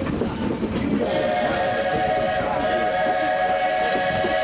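Steam locomotive whistle of the Walt Disney World Railroad blowing one long blast, several tones sounding together, starting about a second in, over the running noise of the train.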